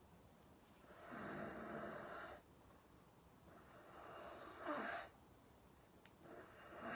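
A person breathing audibly: three breaths out, each a second or more long, about a second in, in the middle, and near the end, the middle one ending with a brief voiced edge.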